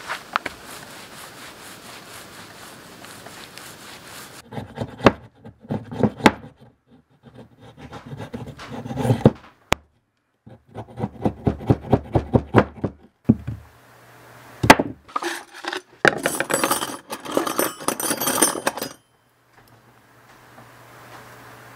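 A thin wooden stick being split with a hatchet and shaved with a knife on a wooden workbench. It starts with a few seconds of steady background, then comes in bursts of quick wooden knocks and rubbing, one sharp click, and near the end a longer stretch of bright scraping as the blade shaves the wood.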